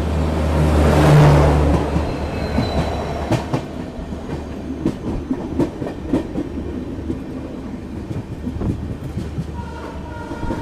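Rajdhani Express passenger train running at speed. A rush of noise swells and fades in the first two seconds, then wheels clack irregularly over rail joints above a steady low rumble.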